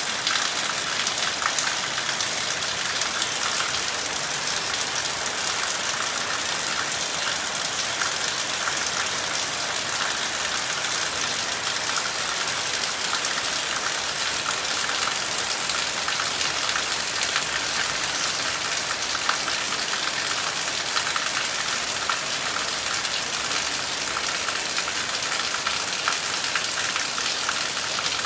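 Heavy rain falling steadily on trees and a yard: an even, dense hiss with many small ticks of drops striking.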